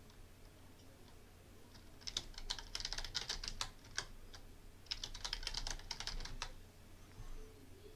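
Computer keyboard being typed in two short runs of keystrokes, a password typed and then typed again to confirm it.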